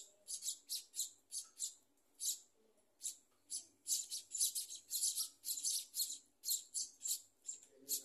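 Scaly-breasted munia nestlings giving rapid, high-pitched begging chirps, several a second, with a short pause about two seconds in.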